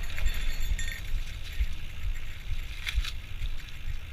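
Riding a bicycle: wind rumbling on the GoPro's microphone over tyre and drivetrain noise, with a faint click about three seconds in.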